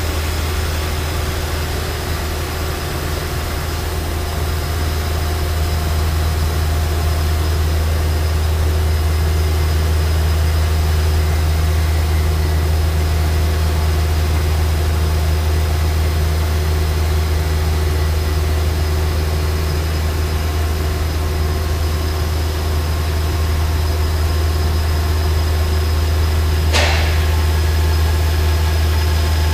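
ESCO PM III 1530 CNC abrasive-wire profile saw running while it cuts a dense polyisocyanurate foam block: a loud, steady low machine hum with faint steady whining tones above it. A brief sharp noise cuts in near the end.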